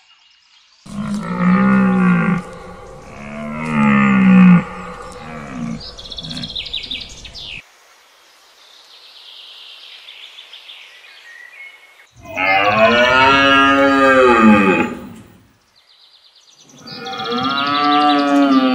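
A run of animal calls: sheep bleating, two loud calls then a few shorter ones, then a quieter stretch of faint high chirping. Then two long, low calls that rise and fall in pitch, from red deer stags roaring.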